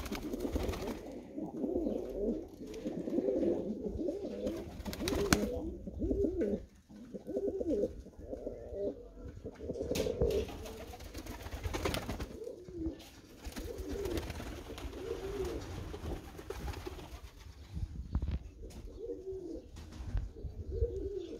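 Several Macedonian donek pigeons cooing over one another in a rolling, repeated chorus, with a few brief sharp clicks in between.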